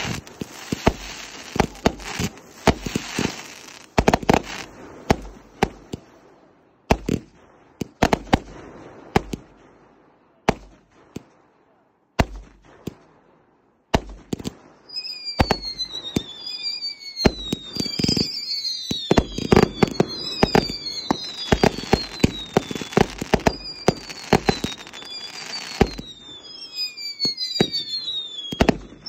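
Consumer fireworks going off: a dense run of bangs and crackling, then a few seconds of sparser single bangs. From about halfway, a string of whistling shots starts, each whistle falling in pitch, mixed with more bangs.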